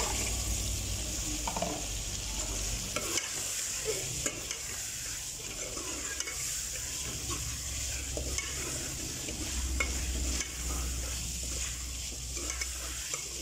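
Boiled beef frying in ghee and onion masala in a metal pot, a steady sizzle, while a metal spoon stirs through it with scattered clicks and scrapes against the pot.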